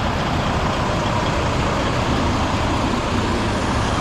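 Semi truck's diesel engine idling steadily, a low even rumble.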